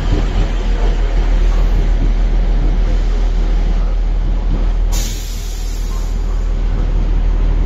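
Class 158 diesel multiple unit moving slowly along the platform, its underfloor diesel engines running with a steady low drone. A brief hiss of air comes about five seconds in.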